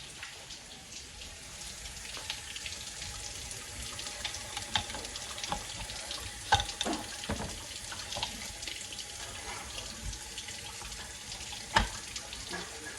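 Water running into a kitchen sink, a steady splashing hiss, with a few sharp clinks of pots or utensils.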